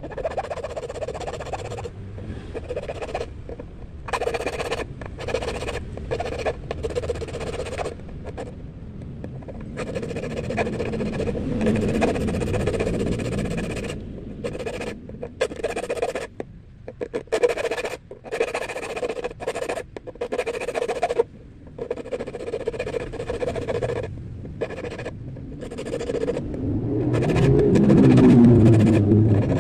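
Small triangular needle file rasping on a steel fishing hook in repeated strokes with short pauses, cutting a barb into the hook's point. A low rumble builds near the end and is the loudest part.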